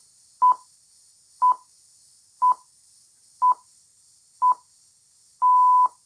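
Radio Rossii's hourly time signal played through an FM radio: five short beeps at one pitch, a second apart, then a longer sixth beep marking the top of the hour, over faint reception hiss.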